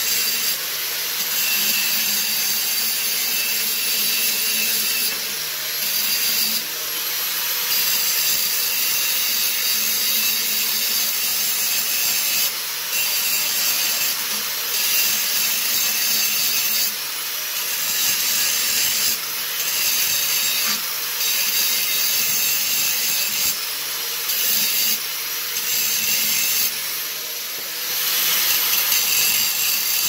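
Electric power tool fitted with two stacked cutoff wheels grinding down the steel crankshaft of a 5 hp flathead engine to remove its taper. The grinding runs continuously with short dips and surges as the wheels bite and ease off.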